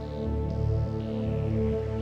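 Background music with slow, sustained tones.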